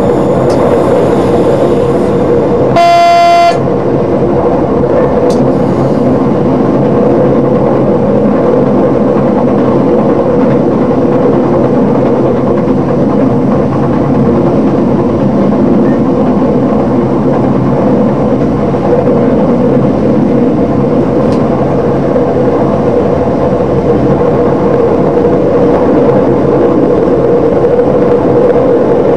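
DB Class 628 diesel multiple unit under way, heard from the driver's cab: steady diesel engine and wheel-on-rail running noise, with one short horn blast about three seconds in.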